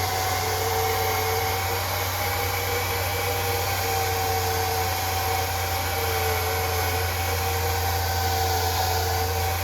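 Handheld hair dryer running steadily, a constant rush of air over a low motor hum and a faint steady whine, drying the wig's laid-down hair to hold it in place.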